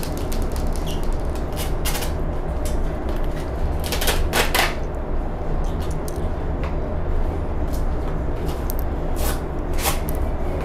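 Airsoft BBs being pressed by hand, one at a time, into a WE 1911 MEU gas pistol magazine: irregular small clicks, with a louder pair about four seconds in.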